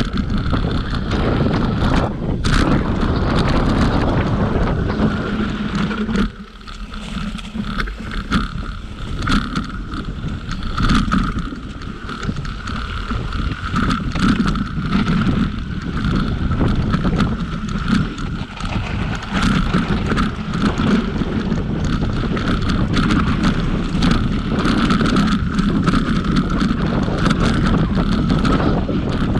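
Mountain bike descending a dirt singletrack fast: wind buffeting the camera microphone over tyre rumble on the trail, with frequent rattles and knocks from the bike over bumps and a steady high buzz.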